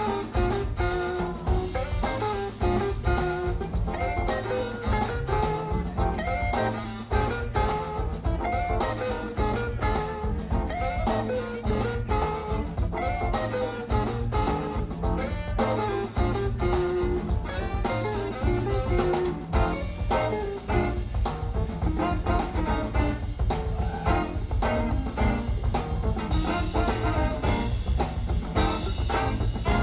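Background music: an upbeat jazz tune with guitar, drum kit and brass.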